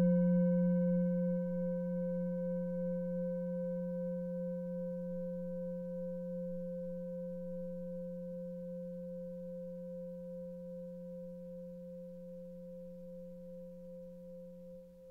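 Seven-metal singing bowl, 18.5 cm across, struck once and left to ring: a deep, steady hum with several higher tones above it, fading slowly. The highest tones die away within the first few seconds.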